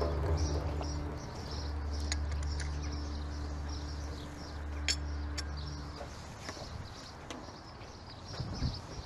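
Small songbirds chirping over and over, with a low steady hum underneath that fades out about six seconds in. Two sharp clicks come close together about five seconds in.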